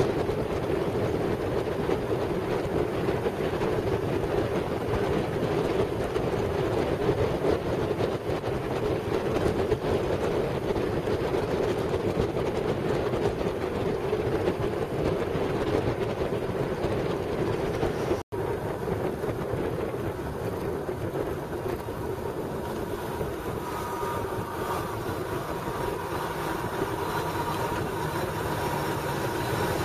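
Steady rushing wind and road noise from riding a motorcycle at motorway speed. It cuts out for an instant about two-thirds of the way through, then continues a little quieter as the bike slows.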